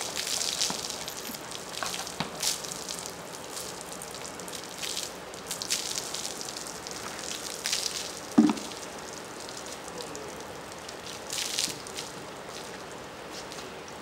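Water from a bucket splashing over a horse's wet coat in repeated short spurts, with a single louder thud about eight seconds in.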